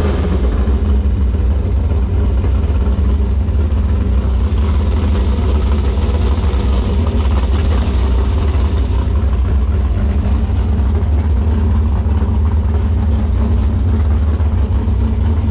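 Big-block Chevrolet 468 cubic-inch V8 in a V-drive Sanger hot boat, idling steadily with a loud, deep drone.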